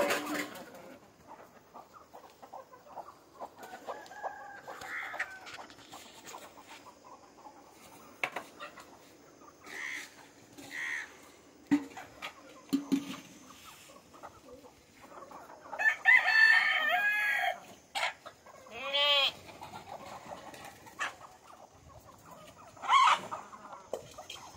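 Chickens clucking around a feed spot, with a rooster crowing once about two-thirds of the way through, the loudest sound, and a few shorter calls scattered before and after.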